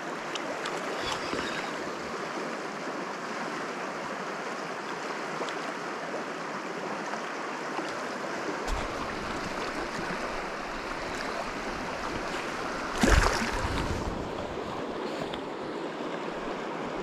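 River water flowing steadily over stones, an even rushing hiss. About thirteen seconds in, a brief louder thump lasting about a second.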